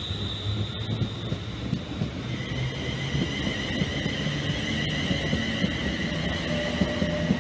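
Class 350 Desiro electric multiple unit pulling out of the station: a steady high-pitched whine from its traction equipment over the rumble of the wheels. A second pair of whining tones joins in about two seconds in.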